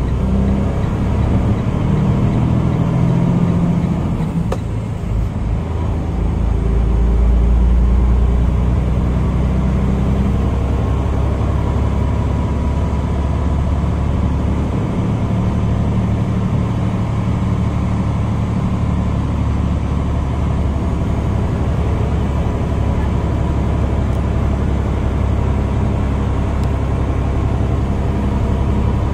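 Tractor-trailer's diesel engine and road noise heard from inside the cab while driving, a steady low rumble that dips briefly and then swells louder about seven or eight seconds in.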